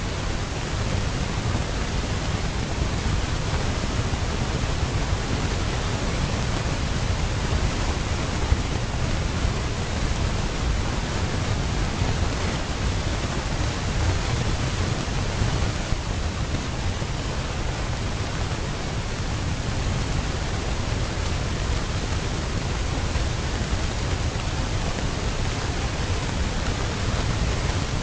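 Steady rushing noise, heaviest in the low end, with no distinct sounds in it; the elephants themselves are not heard.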